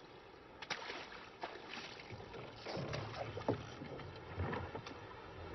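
Sea water lapping against a small wooden fishing skiff, with scattered knocks and short squeaks from the boat.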